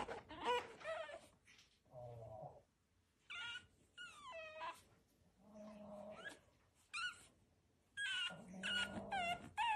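Pug puppy whining in a string of short, high calls with gaps between them, several sliding down in pitch, with a couple of lower, longer whines around the middle and near the end.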